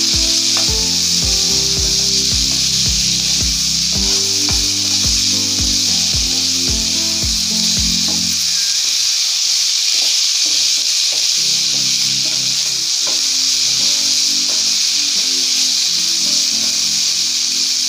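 Chicken pieces with chopped onion and garlic sizzling in hot mustard oil in a frying pan, stirred with a wooden spatula. Background music with a steady beat runs underneath, the beat dropping out about halfway.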